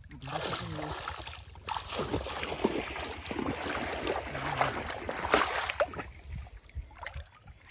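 Shallow pond water splashing and sloshing irregularly as a hand gropes inside a bamboo polo fish trap pressed into the water, dying down near the end.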